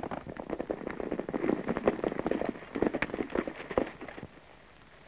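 Hooves of several horses clattering as a group of riders comes in and pulls up: a dense, irregular patter that stops about four seconds in.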